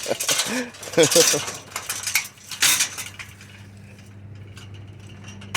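Metal bed frame being forced and smashed down, clanking and rattling in three bursts over the first three seconds. After that it goes quieter, leaving a low steady hum.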